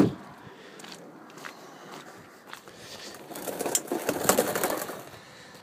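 Faint scuffing and rustling of a person moving about on concrete as he gets down to crawl under the truck, louder and busier for a second or two past the middle.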